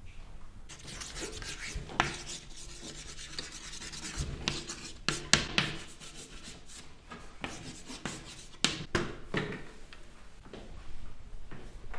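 Rubbing and scraping with scattered sharp clicks and knocks, a few louder taps about two, five and nine seconds in.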